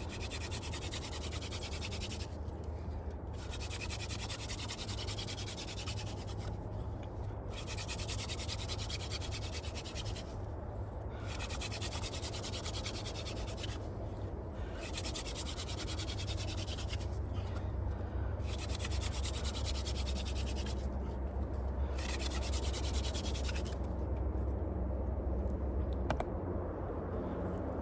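Hand drill friction fire: a wooden spindle spun back and forth between the palms, grinding into a wooden fireboard with a dry, hissing rub. It comes in runs of two to three seconds with short breaks as the hands go back to the top of the spindle. This is the drilling that builds up hot dust into a coal, and the rubbing stops a few seconds before the end.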